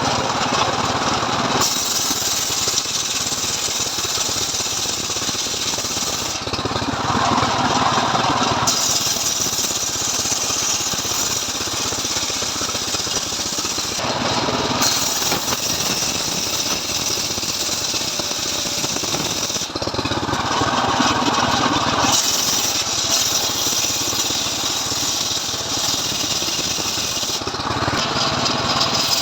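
Stihl MS 381 two-stroke chainsaw running under load on a homemade ripping rig, sawing a log lengthwise. It runs without a break, and its sound shifts for a couple of seconds every six to seven seconds.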